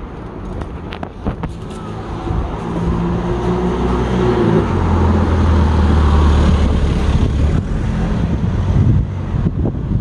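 A motor vehicle passing close by on the street, its engine and tyre noise swelling over a few seconds, loudest about midway, then dropping away near the end.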